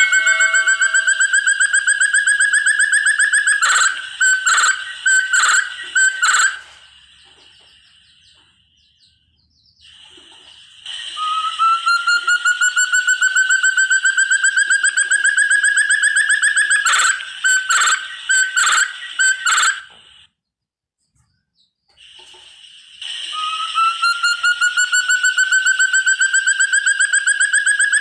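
Forest partridge (puyuh hutan, 'burung terung') calling: a long, rapid series of whistled notes that climb steadily in pitch, then several louder separate notes. The sequence comes three times with short pauses between.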